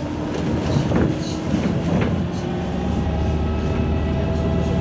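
Interior of a MAZ 203 city bus under way: steady drivetrain and running drone, with two thumps about a second apart early on. In the second half a whine slowly rises in pitch.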